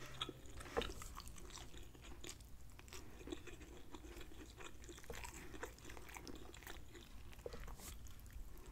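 Quiet close-up chewing of tender baked chicken thigh, with scattered small mouth clicks.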